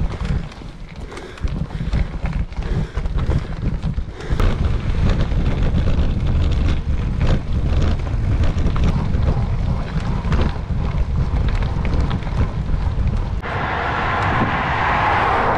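Wind buffeting the camera microphone while a bicycle rolls over a gravel path, with small stones crackling under the tyres. Near the end the sound changes suddenly to a smoother hiss of tyres on asphalt.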